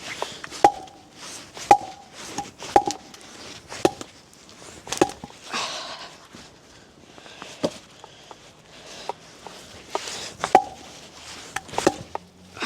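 Hatchet chopping into a piece of firewood: about nine sharp blows, the first five roughly a second apart, several with a brief metallic ring.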